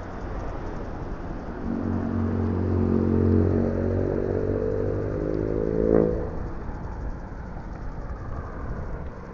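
A motor's note rising in pitch over a few seconds and growing louder, peaking about six seconds in, then dropping away under steady outdoor noise.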